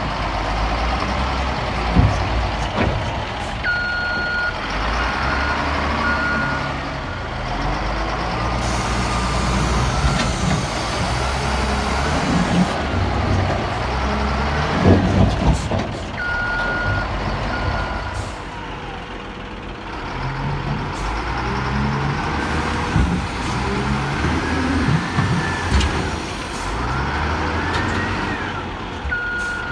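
Heavy diesel quarry machinery working: engines running and revving up and down, with a reversing alarm beeping in three spells. A long hiss of air comes in about nine seconds in and lasts some four seconds, and a few knocks stand out.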